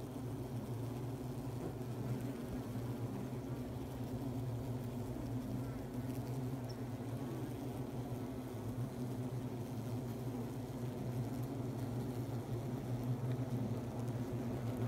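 Steady humming buzz of a dense cluster of honeybees in their hive.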